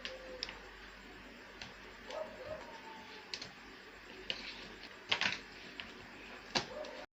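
A cardboard speaker box being opened by hand: scattered light clicks, taps and rustles of the box and packaging, with a couple of sharper knocks about five and six and a half seconds in.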